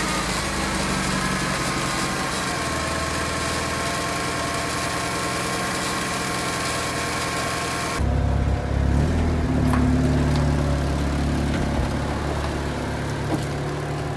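1999 Saturn SL2's twin-cam 1.9-litre four-cylinder running just after starting, with a scraping, grinding noise from the engine that the owner finds concerning. About eight seconds in, it cuts to the same car's engine heard from outside as the car drives slowly up.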